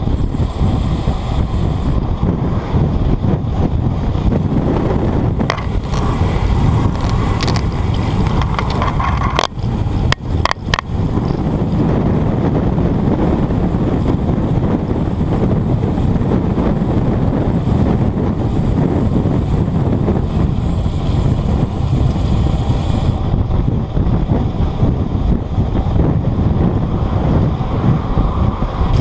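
Wind buffeting the action camera's microphone, mixed with the rumble of a road bike's tyres over a bumpy, poorly surfaced descent. A few sharp knocks come about ten seconds in.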